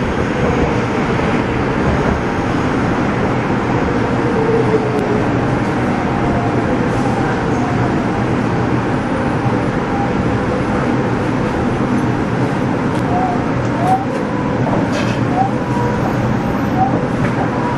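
Subway train pulling out of a station and running into the tunnel, heard from the front of the train: a steady, loud rumble of wheels and motors. A few short rising squeaks come in the second half.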